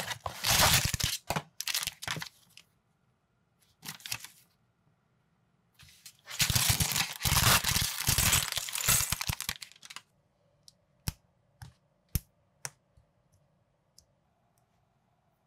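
Cardboard box flap torn open, then a clear plastic parts bag crinkling and tearing for several seconds. Near the end come a few sharp plastic clicks as minifigure pieces are snapped together.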